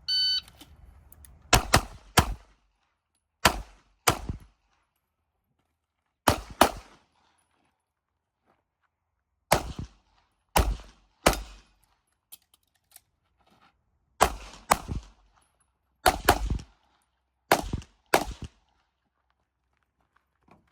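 A shot-timer start beep, then a handgun firing about fifteen shots, mostly as quick pairs with pauses between them, as the shooter runs an IPSC stage.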